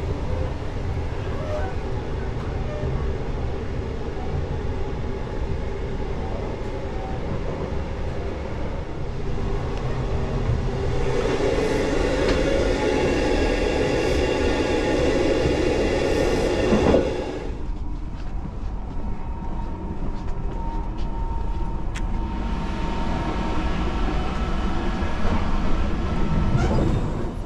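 Inside an Odakyu Romancecar express train on the move: a steady rumble of wheels on the rails. The rumble swells louder and brighter about 11 seconds in, drops sharply at about 17 seconds, and rises again near the end.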